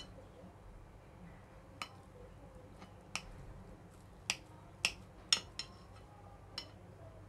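Steel knife clicking against a ceramic plate while cutting through a block of fresh homemade paneer: about eight sharp clicks at irregular intervals, a few close together a little past the middle.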